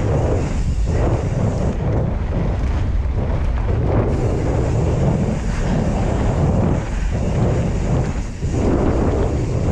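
Steady rush of wind buffeting an action camera's microphone as a Pyga Hyrax enduro mountain bike runs fast down a dirt trail with its brakes off, mixed with the rumble of the tyres on the dirt.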